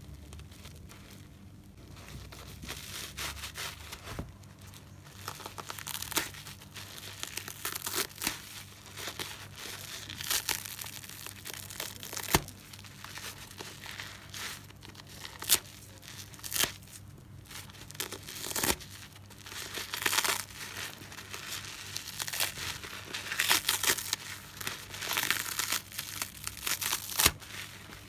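Soapy natural car-wash sponge being torn apart by hand: irregular crackling, ripping bursts as the foam pulls apart, with a few sharp clicks among them.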